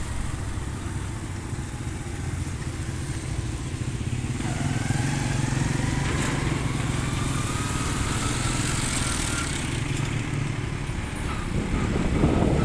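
Motorcycle engine running while riding on a road, a steady low hum. A faint whine rises slowly in pitch from about a third of the way in, and the rumble grows louder near the end.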